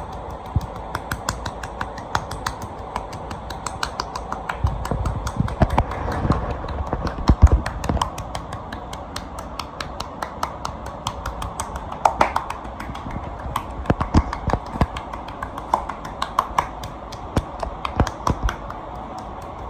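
Hands working on a person's back in a massage: rapid, irregular sharp clicks and taps of palms and fingers on skin, with occasional dull thumps.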